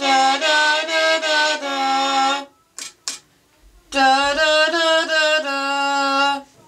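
A girl's voice singing held notes into a circuit-bent voice-changer toy and coming out of its small speaker electronically altered. Two phrases of sustained, stepping notes, with two short clicks in the pause between them.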